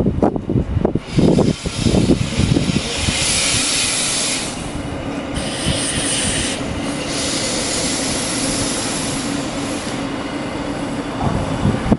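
Regional passenger train rolling into the platform, with a rushing hiss from wheels and rails and a steady low hum from about five seconds in. Wind buffets the microphone in the first two seconds.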